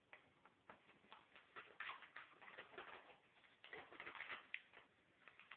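Faint crinkling and light taps of a paper envelope being handled as its flap is pressed down and sealed.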